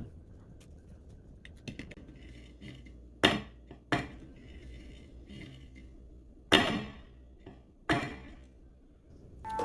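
Kitchen clatter of dishes or utensils: four sharp knocks, two close together a few seconds in and two more, with longer ringing tails, near the end.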